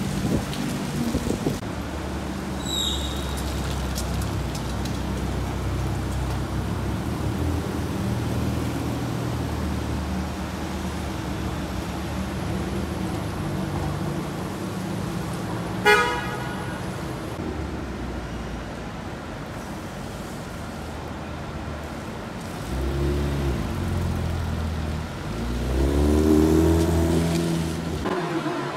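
Street traffic with car engines running steadily. A short car horn toot comes about halfway through, and a car engine revs up twice near the end.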